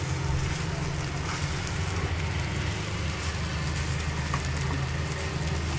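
Egg fried rice sizzling in an oiled pan as it is stirred and tossed gently with a spatula: a steady hiss with a few light taps, over a steady low hum.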